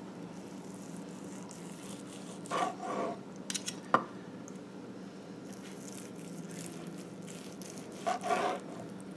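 Carving knife and fork slicing a tender smoked chuck roast on a plastic cutting board: soft cutting with a few light clicks of metal on the board about four seconds in. A steady low hum runs underneath, and there are two brief soft murmurs, one about two and a half seconds in and one near the end.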